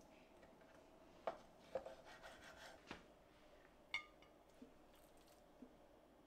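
Quiet knocks and scraping of a kitchen knife against a wooden cutting board while slicing raw salmon, three knocks in the first three seconds. About four seconds in, a single sharp clink with a brief ring from the glass food container as the salmon pieces go into it, followed by a few faint soft taps.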